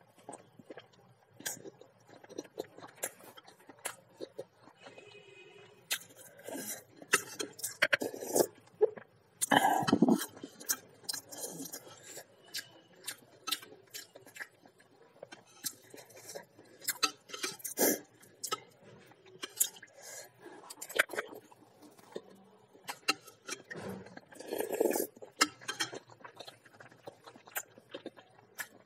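Close eating sounds: chewing mouthfuls of boiled egg, with a metal spoon clicking and scraping against the bowl in irregular short clinks. One louder dull thump comes about ten seconds in.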